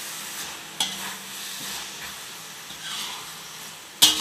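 Beef rendang being stirred in a metal pot over the heat, with a steady sizzle. The spatula knocks against the pot twice, about a second in and at the end, each knock ringing briefly.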